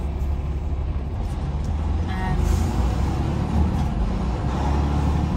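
Steady low rumble of a truck's engine and tyres on the road, heard from inside the cab while driving.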